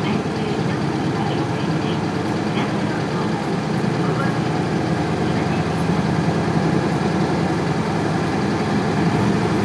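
Isuzu Cubic bus's 8PE1 diesel engine idling steadily, with no revving. The idle is quite unstable, which the owner notes and flags as an abnormal noise.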